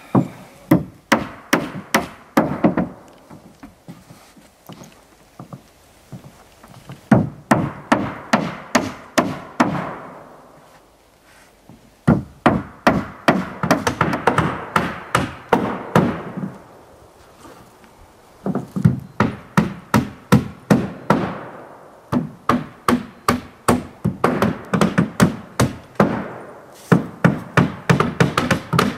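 Hammer driving nails into plywood decking: runs of quick, even strikes, about three a second, with short pauses between nails.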